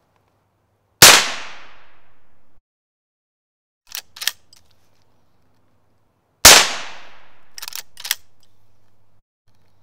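Two shots from a .22 Magnum Henry Small Game Carbine lever-action rifle, about five and a half seconds apart, each with a ringing tail. After each shot come two quick clacks as the lever is worked to chamber the next round.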